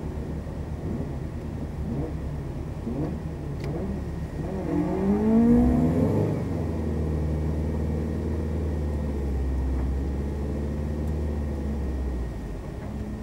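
Subaru Impreza WRX STi's turbocharged EJ25 flat-four heard from inside the cabin, running unevenly at first, then revving up about five seconds in. It holds at steady revs as the car pulls away, and the revs drop near the end.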